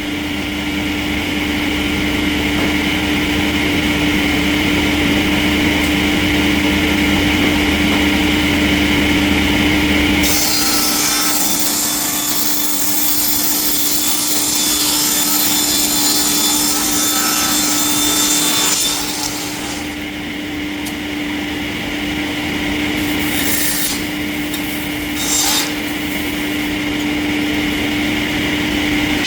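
Sawmill saw running and cutting through wood, over a steady machine hum. A louder, hissing cut starts about a third of the way in and stops about two-thirds through, followed by two short bursts of cutting near the end.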